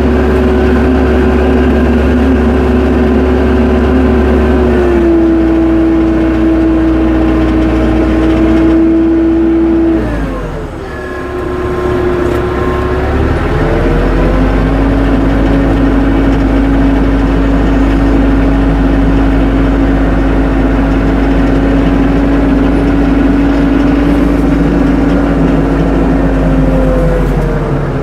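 Tractor running under power with a steady engine tone. The pitch steps down about five seconds in and drops sharply with a brief dip in level around ten seconds, then climbs back a few seconds later; it shifts again near the end.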